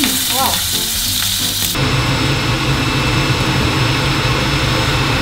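Sliced pork sizzling as it fries in a hot frying pan. About two seconds in the sizzle changes abruptly to a lower, steadier frying sound.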